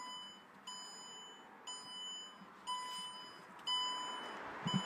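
The Mercedes-Benz C220 CDI's dashboard warning chime beeping about once a second, with a short soft thump near the end.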